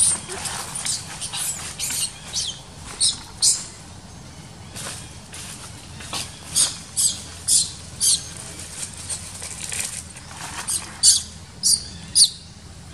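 Dry fallen leaves crackling and rustling in short, irregular bursts as a baby macaque moves through the leaf litter.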